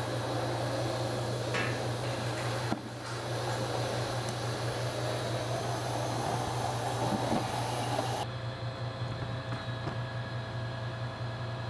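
Steady low hum and rushing noise of running machinery, with cardboard packing being handled and pulled from a box.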